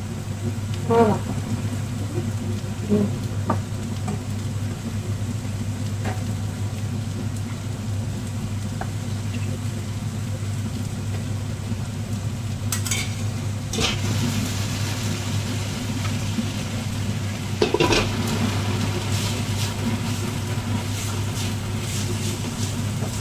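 Chopped vegetables frying in pans, stirred and scraped with wooden spatulas, with several sharp clinks of utensils against the pans and pot, over a steady low hum.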